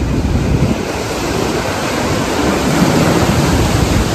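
Waves breaking and foaming surf washing in close to the microphone, with wind rumbling on the microphone.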